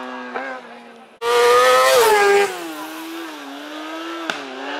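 Racing motorcycle engine at high revs passing close by. It comes in suddenly loud about a second in, its pitch falls as it goes past, and it carries on further off with a wavering note and a brief break near the end.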